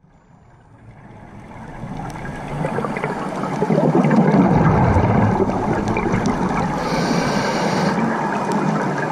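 Scuba diver's regulator breathing heard underwater through a camera housing: a long gurgle of exhaled bubbles, then a short hiss of inhalation about seven seconds in. The sound fades in over the first two seconds, with faint crackling clicks throughout.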